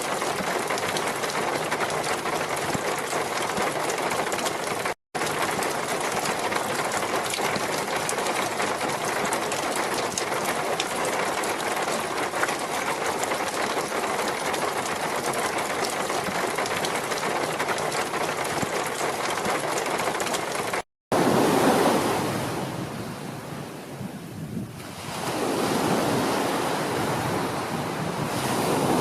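Steady, dense rain with a fine patter for about twenty seconds, broken by a split-second dropout. After an abrupt cut, ocean surf: a wave breaks, washes back out and the next one builds.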